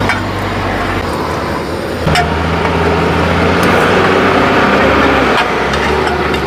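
An engine runs steadily with a low hum over a loud hiss. About two seconds in, a second, higher hum joins in and the sound gets a little louder.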